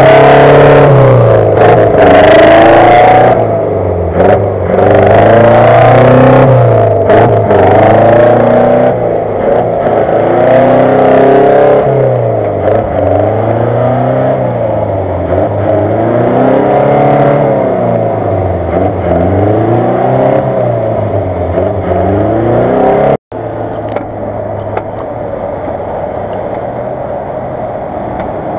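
UAZ-469 off-roader's engine revving up and down over and over, its pitch rising and falling about every two seconds, while it is bogged in deep mud. The sound breaks off abruptly near the end, and a steadier, quieter engine note follows.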